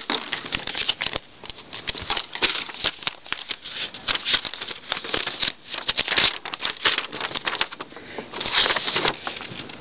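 Plastic packaging and a paper instruction leaflet rustling and crinkling as they are handled, with the leaflet being unfolded; a dense run of small irregular crackles and rustles.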